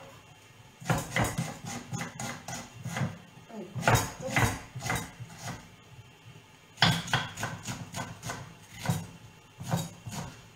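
Kitchen knife chopping onion on a wooden cutting board: irregular knocks of the blade striking the board, a few in quick succession, then short pauses.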